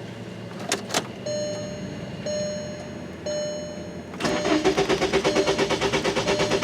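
Two clicks as the key turns, three short chime tones about a second apart, then the starter cranking the 2003 Volkswagen Jetta's 1.8-litre turbo four-cylinder in an even rhythm of about five beats a second without it firing: the hot crank-no-start, with no engine-speed signal reaching the computer.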